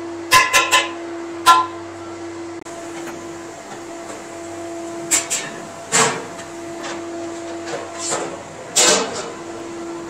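Metal ladle knocking and scraping against the sides of a large metal cooking pot as a thick curry is stirred: several sharp, ringing clanks in small clusters, over a steady hum.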